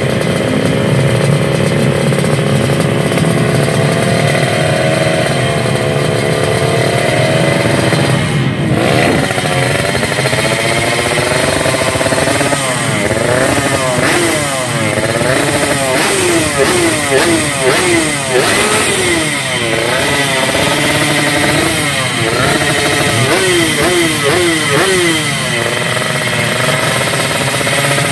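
A Yamaha RX-King two-stroke single-cylinder race engine, bored to 140 cc, running on a stand through its expansion-chamber exhaust. It holds raised revs with a slight waver for the first several seconds, then has its throttle blipped over and over, the revs rising and falling in quick succession. It settles back to steadier revs near the end.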